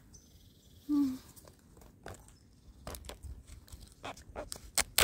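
Close rustling and irregular crackling clicks of hands and the phone brushing through ivy and dry bark on a tree trunk, with a brief voice sound about a second in and the sharpest click near the end.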